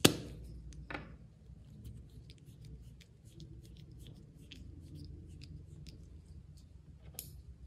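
Slime being squished and worked by hand: a sharp sticky snap right at the start, another about a second in, and a run of small wet clicks and pops, with one louder crackle near the end.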